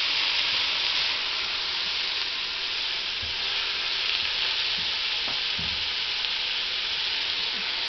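Sliced onions, peppers and carrots sizzling steadily as they fry in a pot, stirred with a plastic spatula.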